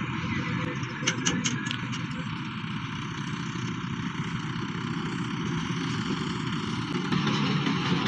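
Combine harvester and tractor diesel engines running steadily as the combine cuts rice, getting a little louder near the end. About a second in there is a quick run of four sharp ticks.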